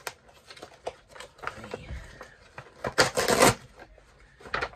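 Packaging being handled: scattered small clicks and rustles, with a loud crinkle or tear of wrapping lasting about half a second around three seconds in, and a shorter one near the end.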